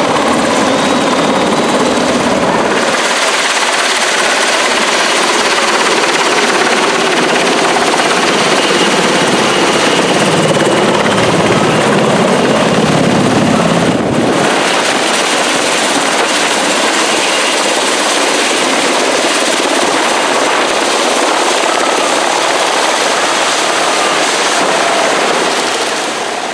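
Sikorsky VH-60 'Whitetop' Black Hawk helicopter flying low overhead, its rotor and twin turbine engines making a loud, steady noise. The sound changes abruptly twice, about three seconds in and again about halfway through.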